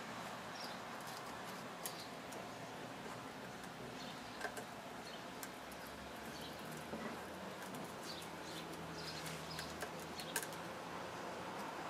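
Scattered light clicks and ticks of small metal carburetor parts and tools being handled during bench assembly, over a steady background hiss.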